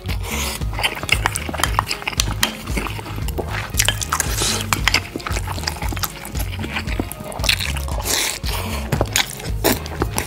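Close-miked eating of spicy sausage stew: wet sipping and slurping of broth off a spoon, with mouth clicks and chewing, over background music.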